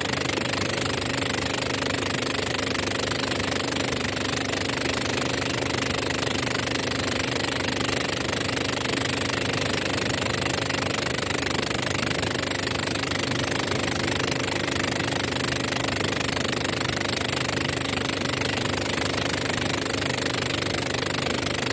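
Small boat's motor running steadily at cruising speed, an even drone with no change in pace.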